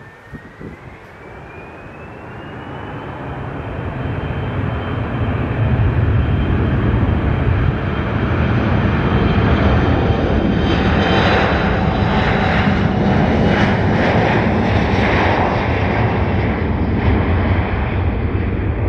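Jet aircraft engines spooling up: a whine rises in pitch over the first few seconds, then holds steady while a loud engine roar builds, reaching full level about six seconds in and staying there, as for a takeoff run.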